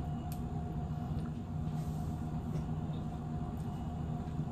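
A steady low hum with a faint steady tone above it, and a light click about a third of a second in.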